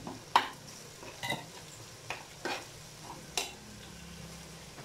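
A steel spoon stirring thick crab masala in a non-stick kadai, with several short knocks of the spoon against the pan, over a faint sizzle of the frying masala.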